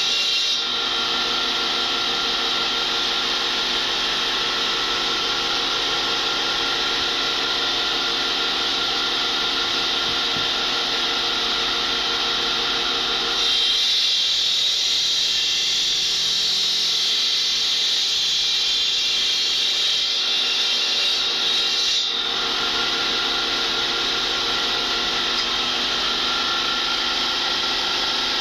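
Water-cooled circular saw of a stone cutting machine running and cutting stone tiles: a steady, loud grinding whine with the hiss of the cooling water spray. The tone of the cut shifts partway through, the lower hum dropping away for several seconds before coming back.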